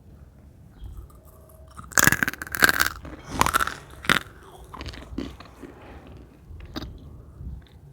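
Close-miked bites and chewing of crisp, crunchy cornstarch: a few loud crackling crunches about two seconds in, then quieter crunching chews.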